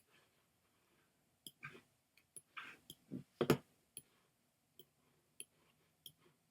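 Computer mouse clicking: a quick run of clicks about two to three and a half seconds in, the loudest near the end of that run, then single clicks spaced out.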